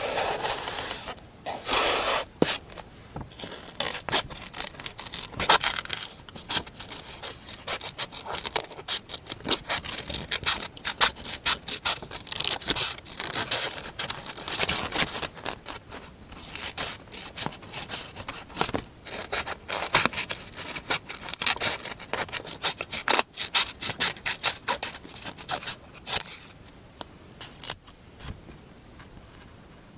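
Close-miked paper-crafting sounds: many short scratching and rubbing strokes on paper, dying down over the last couple of seconds.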